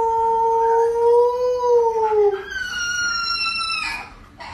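Huskies howling: one long, steady howl, then a higher-pitched howl takes over about two and a half seconds in and stops shortly before the end.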